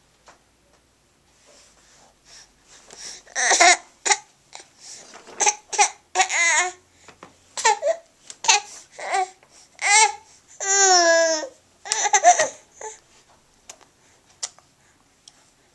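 Baby babbling and laughing in short, irregular bursts, with one longer high-pitched squeal about eleven seconds in.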